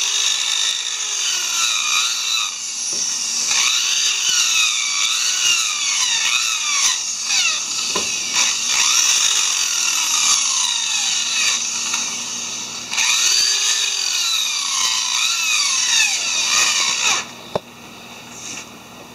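Power tool spinning a sponge sanding wheel against a wooden handrail joint, smoothing its inner rounded corners: a steady sanding hiss with a motor whine that rises and falls as the wheel is pressed on and eased off. It dips briefly past the middle and stops about 17 seconds in.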